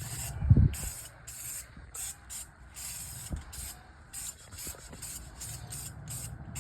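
Aerosol spray can sprayed in short, quick hissing bursts, about fifteen of them, with a low thump about half a second in.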